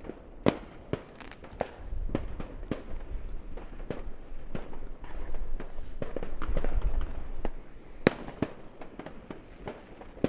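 Neighbourhood New Year's Eve fireworks: scattered firecracker and rocket bangs at varying distances over a low rumble, with one sharp, louder bang about eight seconds in.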